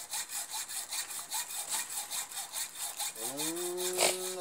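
Fast, even rasping strokes, about four or five a second, like a saw working through wood.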